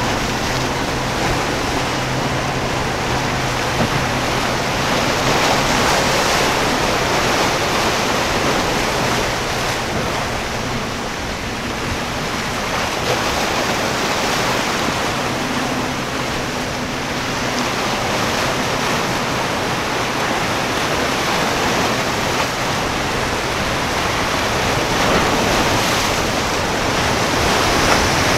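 Surf and open-water wash with wind buffeting the microphone: a steady, even rush. Underneath it at times comes a faint low drone from the passing boat's engine.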